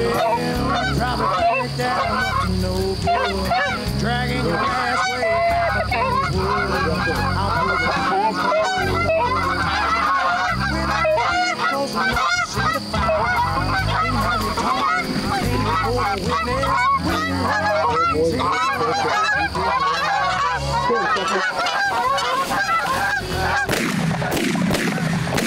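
A flock of Canada geese honking, many calls overlapping continuously as the birds circle in over the decoys.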